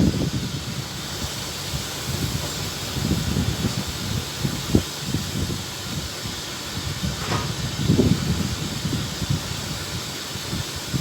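Storm wind buffeting the microphone in irregular low gusts over a steady hiss.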